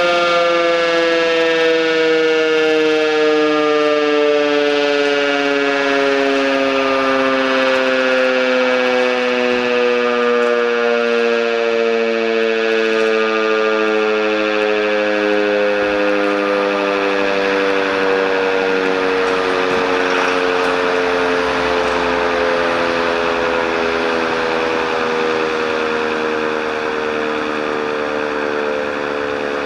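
Village fire-alarm siren sounding the brigade call-out, one continuous tone sliding slowly and steadily down in pitch, as a motor siren does when it winds down.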